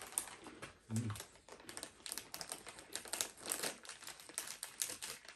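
Plastic crisp packet crinkling and crackling in irregular bursts as it is handled and pulled open by hand.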